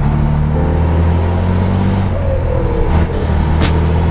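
Scania 112 truck's diesel engine running steadily under way, heard from inside the cab. Two short, sharp sounds come about three seconds in.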